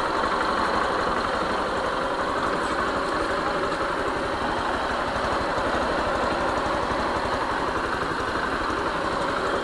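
Motorstar Easyride 150N scooter's single-cylinder four-stroke engine idling steadily. The engine is nine months old and has never been opened, and the owner says it still sounds good with no trouble.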